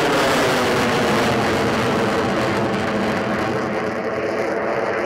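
Twin turbofan engines of an F/A-18 Super Hornet flying a display pass overhead: a loud, steady jet rush whose tone slowly shifts, easing slightly about four seconds in.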